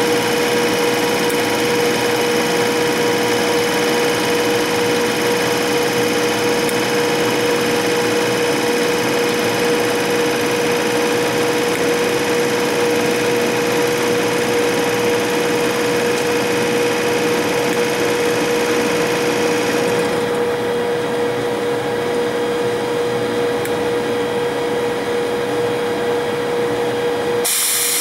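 Stationary British Rail Class 92 electric locomotive standing with its on-board equipment running: a steady mechanical whir with a constant mid-pitched whine over a hiss, with no engine rumble. Near the end the whine cuts out and a brighter hiss takes over.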